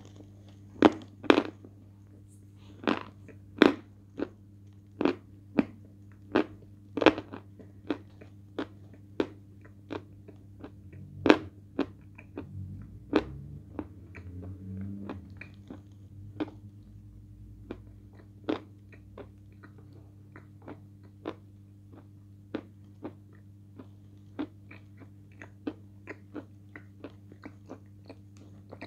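Close-up biting and chewing of a hard white bar dipped in a brown paste: crisp crunches, about one or two a second, louder in the first half and softer and more spaced toward the end.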